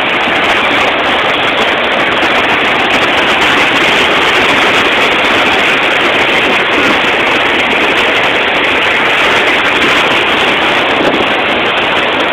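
Large waterfall pouring at full flow, heard close by: a loud, steady rush of falling water that never lets up.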